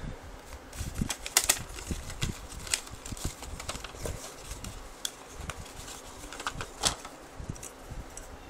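Small cardboard product box being handled and opened and a bottle opener slid out of it: irregular rustling, scraping and light clicks, with a few sharper clicks about one and a half, four and seven seconds in.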